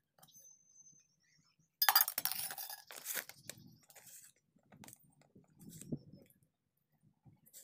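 A metal spoon scooping and clinking against a container: a sudden burst of scraping and clinks about two seconds in, then a few softer knocks and handling sounds.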